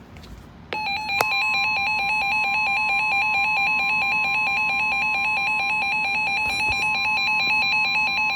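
NOAA Weather Radio warning alarm tone: a steady, single-pitched alert tone, signalling that a new warning follows. It comes on about a second in, alongside a fast-warbling electronic alarm that starts suddenly just before it.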